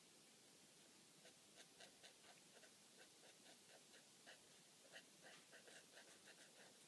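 Faint, quick scratching of a blender pen's tip being stroked over watercolour paper, many short strokes in irregular runs.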